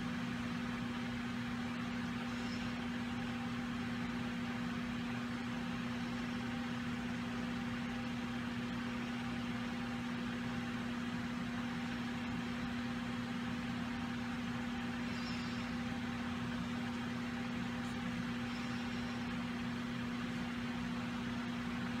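Steady low hum with an even hiss underneath, unchanging throughout, with no distinct clicks or strokes.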